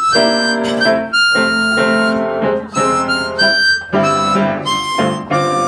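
Harmonica played through a microphone, a melody of held notes changing every half-second or so, over live piano accompaniment.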